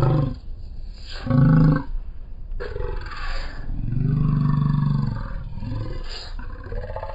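A deep voice growling and roaring in a string of separate roars, each up to about a second long, the longest about two-thirds of the way through.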